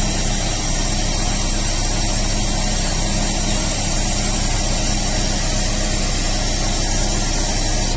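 Car carrier truck's diesel engine and hydraulics running steadily, a hum with a loud hiss, as the deck slide is worked from its button switch; the hiss drops off suddenly at the very end.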